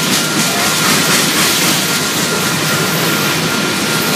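Covered hopper cars of a freight train rolling past at a grade crossing, a steady rumble and clatter of wheels on rail. A thin, steady high tone runs through it.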